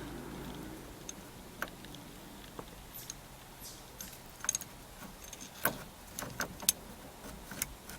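Scattered small metallic clicks and a light jingle of keys as a new ignition lock cylinder is worked into its bore in a 1979 Chevy K20 pickup's steering column. The clicks are sparse at first and come more often in the second half.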